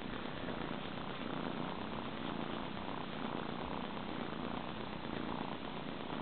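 Kitten purring steadily while being stroked.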